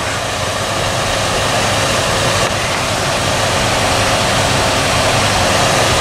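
2003 Dodge Ram 1500 engine idling with the air conditioning on maximum: a steady rushing noise over a low hum.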